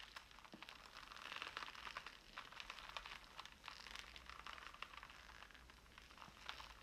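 Coiled hemp rope twisted and wrung in the hands, giving a faint, continuous fibrous creaking and crackling with many small clicks: a Foley rope creak.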